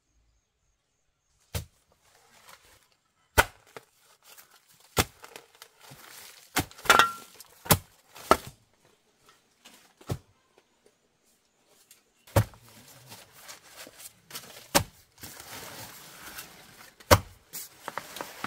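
Chopping strikes of a hand tool, about one every one to two seconds from a second and a half in, with rustling and scraping between the blows.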